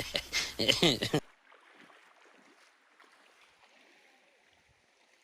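A man speaks briefly, then faint running water of a small stream, an even hiss that slowly fades.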